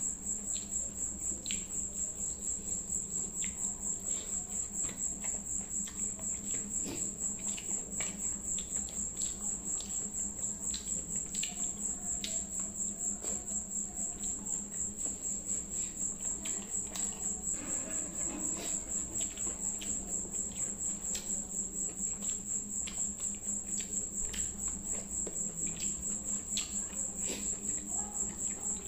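A cricket chirping steadily in a high, evenly pulsing trill, over soft wet clicks of rice being mixed by hand and chewed.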